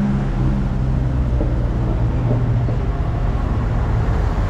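Large truck engine idling steadily, a low even hum.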